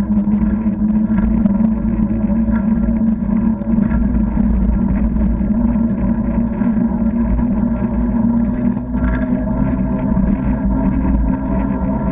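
Bicycle rolling along a wet tarmac path, picked up by a camera mounted on the bike: a steady hum and low rumble from the tyres and frame, with scattered light clicks and rattles over bumps.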